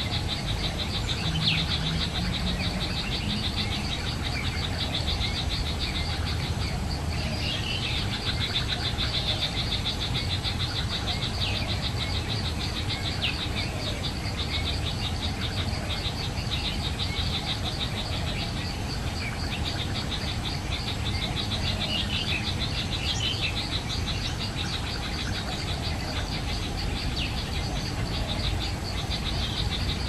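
Forest ambience: a steady, fast-pulsing insect trill, dropping out briefly a few times, with short falling bird chirps over it now and then and a low rumble underneath.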